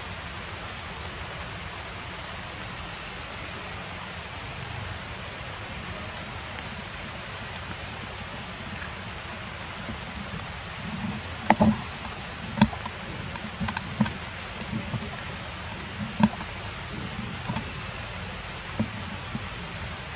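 Steady outdoor hiss like light rain or running water, with a scatter of short sharp clicks and taps about halfway through.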